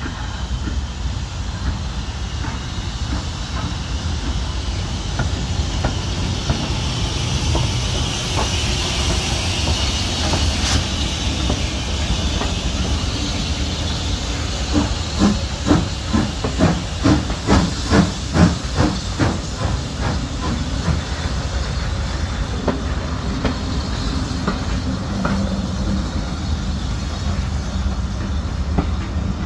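BR Standard Class 4MT steam locomotive passing close by at slow speed. First a steady steam hiss that swells, then as the engine draws level a run of sharp rhythmic beats about two a second, then the rumble of its coaches rolling past.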